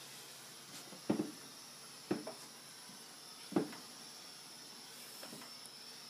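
Three dull knocks on a wooden tabletop, about a second apart, over a faint steady hiss.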